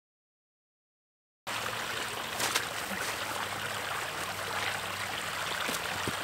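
Silence for about a second and a half, then floodwater running and trickling through shallow channels across a waterlogged field, with a faint steady low hum underneath.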